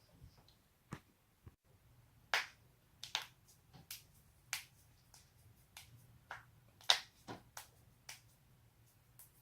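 Joints cracking: a dozen or more sharp pops at uneven intervals, the loudest about seven seconds in.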